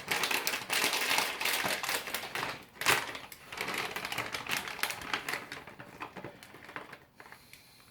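Rapid clicking, scraping and rustling as grated cheddar is added to a saucepan of cheese sauce and worked in. The noise fades off about six seconds in.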